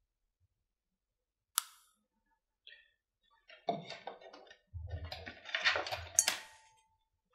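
Quiet at first, then a single sharp click about one and a half seconds in. From about halfway on come a few seconds of small knocks, taps and rubbing as a plastic mixing cup and a resin-filled silicone mould are set down and moved on a cutting mat.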